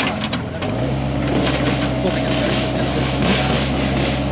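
Excavator's diesel engine running, stepping up to a steady higher note a little under a second in as the bucket pushes on the back of the mired Vauxhall Frontera, with repeated scraping and rubbing rushes from the bucket against the vehicle and mud.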